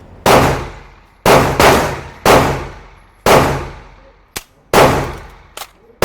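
A 12-gauge shotgun fired in a rapid string: six loud shots, each with a long ringing tail, two of them barely a third of a second apart. A couple of small sharp clicks fall between the later shots.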